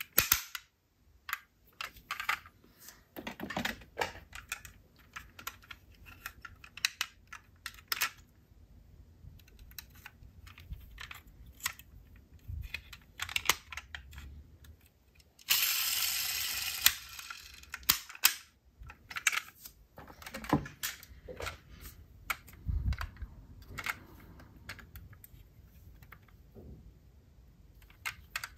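Diecast metal toy cars being handled: scattered small clicks and light clatter, with one brief scraping rustle about halfway through.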